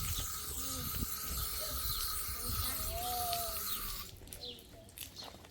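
A steady hiss that cuts off suddenly about four seconds in, leaving quieter surroundings.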